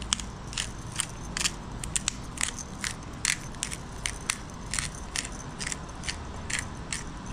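Hand-twisted pepper grinder cracking black peppercorns: a steady run of sharp crunching clicks, two or three a second.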